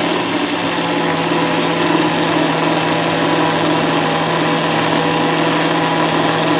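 Countertop blender motor running steadily at one speed with an even hum, blending a thick sauce of yellow chili, fresh cheese, milk and salted crackers.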